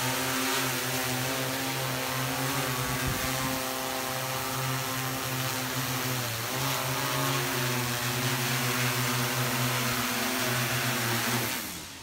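DJI M210 quadcopter's four motors and propellers humming steadily as it descends to land. The pitch sags and recovers briefly about halfway, then the hum winds down and stops near the end as the motors shut off after touchdown.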